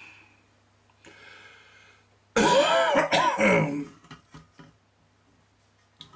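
A man clearing his throat: a loud, harsh rasp of about a second and a half with a breathy intake just before it, followed by a few small clicks, over a steady low mains hum.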